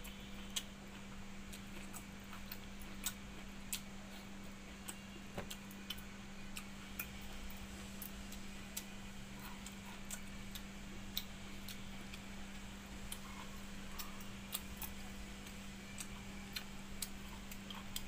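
Eating by hand from a steel bowl of watered rice: irregular small clicks from chewing and fingers working the rice, over a steady low hum.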